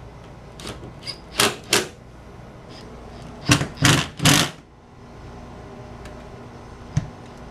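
Cordless impact driver run in short bursts, two about a second and a half in and three more in the middle, tightening the door's hinge bolts down. A single click near the end.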